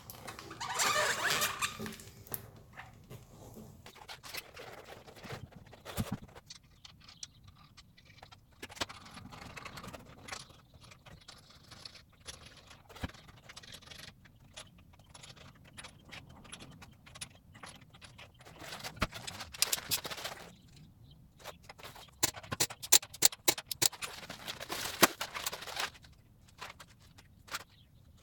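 Hands-on wheel-change work: irregular metal scrapes, rattles and clicks as lug nuts, a socket and the wheel are handled. A run of sharp clicks comes near the end.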